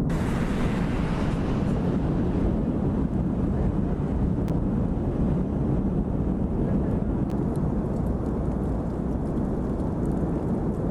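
Continuous low rumbling roar of the Cumbre Vieja volcano erupting, with a few faint sharp cracks scattered through it.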